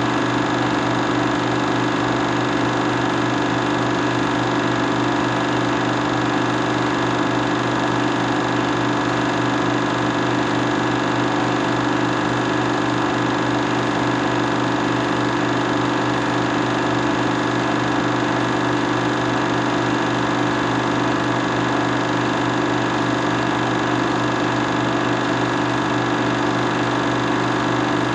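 Loud, steady mechanical hum and buzz that does not change at all.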